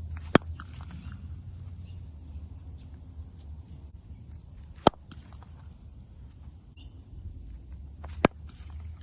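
Repaired cricket bat striking a ball three times, about four seconds apart, each a single sharp crack.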